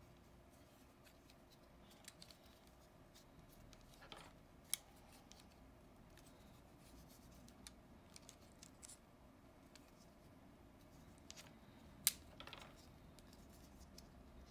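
Quiet handling of an action camera's plastic frame case as the camera is pushed into it, with small plastic clicks and two sharper snaps, one about a third of the way in and one near the end.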